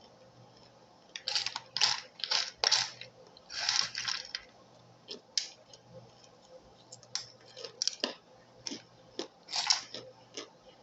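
Crunching of toasted starch chunks being chewed: a quick run of sharp crunches for a few seconds, then sparser, lighter crunches.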